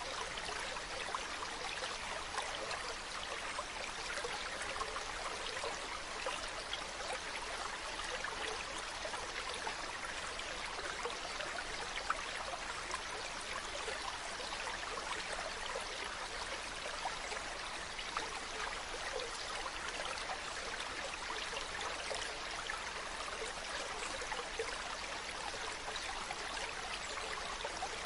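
Mountain stream running over rocks: a steady, even rush of water with small splashes.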